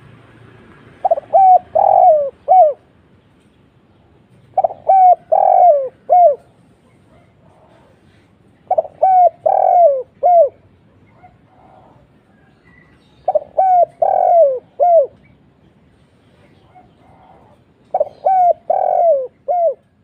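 Spotted dove cooing: five phrases about four seconds apart, each a run of four notes, the third drawn out longer than the others.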